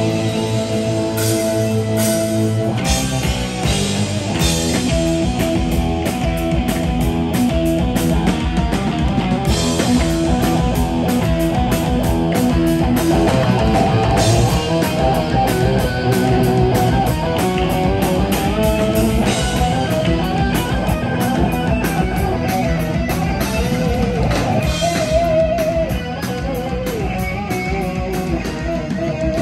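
Thrash metal band playing live: distorted electric guitars, bass guitar and drum kit in an instrumental passage. It opens on held chords, the drums come in about three seconds in, and a guitar plays wavering lead lines over the riffing.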